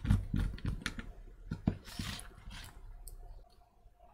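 Handling noise from a Bluetooth speaker's circuit board and plastic housing being fitted back together: a quick run of knocks and clicks over the first two seconds or so, then softer scraping and fiddling as a ribbon cable is worked with tweezers.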